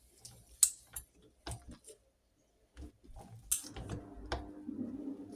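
Scattered sharp metallic clicks and ticks from a torque wrench being worked on the oil pump worm drive nut on a Norton Commando crankshaft. A faint steady hum comes in about four seconds in.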